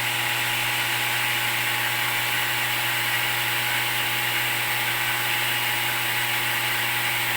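Electric pump motors of a water refilling station's treatment system running with a steady hum: the raw water pump just switched on to feed the reverse osmosis line.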